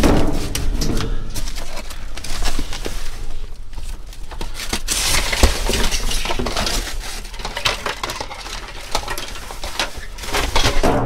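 Trash being rummaged through inside a dumpster: rustling plastic bags and cardboard, shifting items and decorations, with scattered clinks and clatter and a heavier knock about halfway through.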